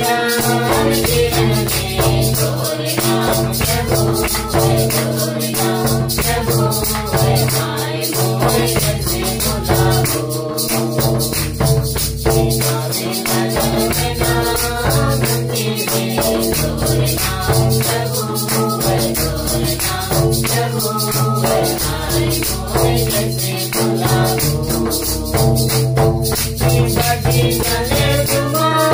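Group singing a devotional hymn together, backed by a hand-played barrel drum and a handheld rattle shaken in a fast, steady rhythm, with hand clapping. The drum's low beat keeps a repeating pattern that pauses briefly about every two and a half seconds.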